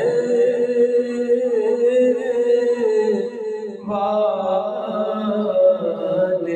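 A man reciting an Urdu naat solo into a microphone, holding long, wavering melodic notes. He pauses briefly and starts a new phrase about four seconds in.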